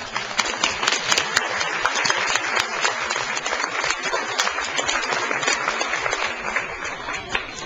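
Audience applauding: dense clapping that fades away over the last second or two.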